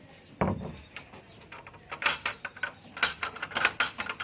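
A dull thump, then a rapid run of sharp knocks and clatters as washing machine cabinet panels are handled and shifted during disassembly.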